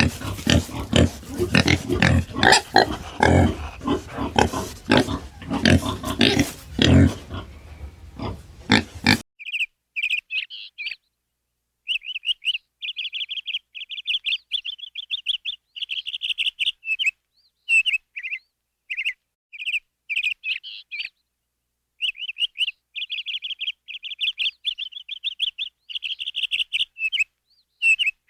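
An animal grunting in rough, rapid bursts for about nine seconds, cut off abruptly, then a bird chirping in short, quick twittering runs separated by brief pauses.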